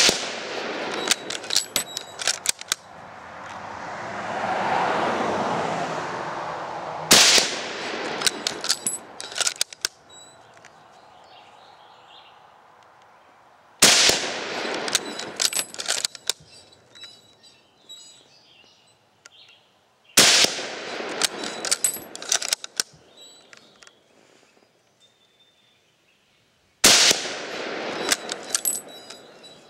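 Five shots from a German K98 Mauser bolt-action rifle firing 8mm Mauser surplus ammunition, about six and a half seconds apart. After each shot comes a quick run of metallic clicks as the bolt is worked for the next round.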